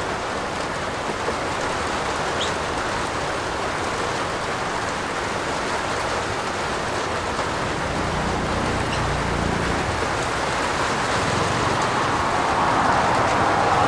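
Steady rain falling on a roof, with faint scattered drip ticks. A low rumble swells about eight seconds in, and the rain grows louder near the end.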